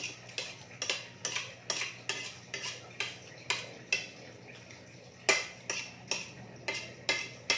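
Spoons and forks clinking and scraping against dinner plates as two people eat: irregular sharp clicks, about two or three a second.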